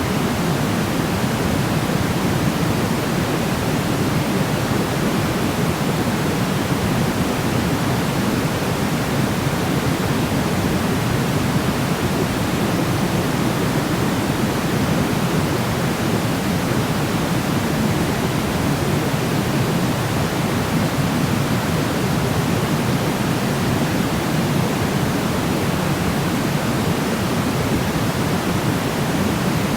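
Steady, unchanging sleep noise: an even hiss that is fuller in the low end than in the highs, like pink noise, with no breaks or changes.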